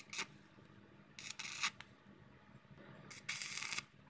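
Stick arc welding of a steel bracket: three short bursts of arc crackle and hiss as tack welds are struck, a brief one at the start, one about a second in, and a longer one of under a second about three seconds in.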